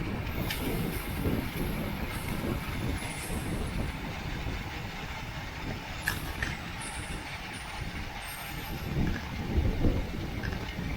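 Wind rushing over the microphone and road rumble from a racing bicycle at speed, with a few sharp clicks about half a second in and around six seconds in.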